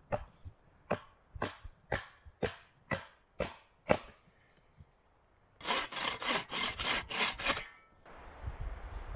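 Hatchet chopping into a peeled wooden pole, sharp blows about two a second for roughly four seconds. After a short pause, a folding pruning saw cuts through the wood in quick rasping strokes, about five a second, for two seconds.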